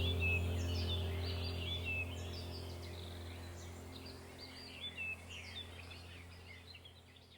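Many birds chirping and twittering in quick, short calls over a steady low drone, all fading out gradually.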